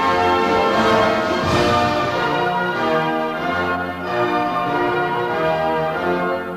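Instrumental anthem music: held chords with a bell-like ring over a steady bass line, with a brief noisy swell about one and a half seconds in.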